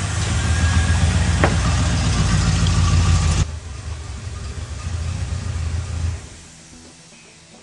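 Modified 4-litre Rover V8 in an Alvis TD21 Series 2 idling with a deep, steady rumble. It drops in level about three and a half seconds in and fades away about six seconds in.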